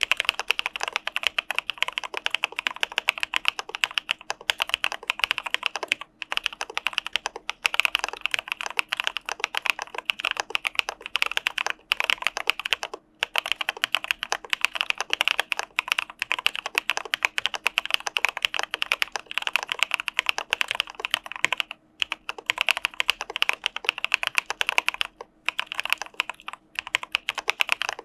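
Continuous fast typing on an Arisu Alice-layout mechanical keyboard with Cà Phê Sữa Đá linear switches: a dense run of keystroke clacks, broken by brief pauses a few times.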